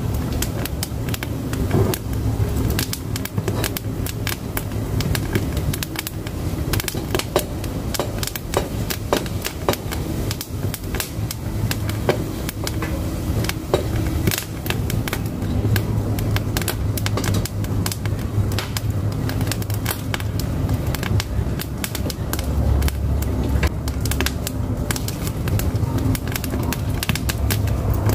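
Firewood burning in a wood-burning cookstove, crackling and popping in quick irregular snaps over a low, steady rumble of the flames.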